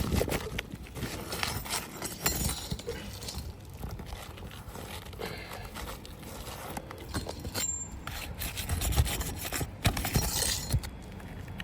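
Asphalt roof shingles scraping and rubbing against each other as a damaged shingle is worked loose from under the course above, with scattered small clicks and knocks.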